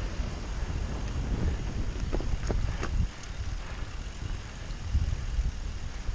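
Mountain bike rolling fast down a trail over wooden boardwalk slats and dirt: a steady low rumble of tyres and wind buffeting the microphone. A few short sharp clacks come about two to three seconds in.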